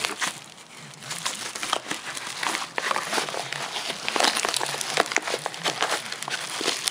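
Parcel packaging crinkling and crackling as it is worked open by hand: a dense run of irregular crackles and rustles, with a brief lull about half a second in.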